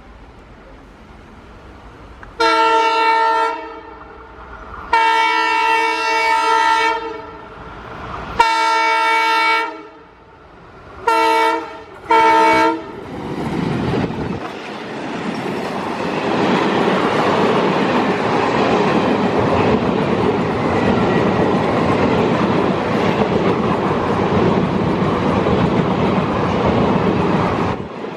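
Indian Railways train horn sounding five blasts, three long and then two short, followed by the train running past, its wheels and wagons clattering steadily over the rails.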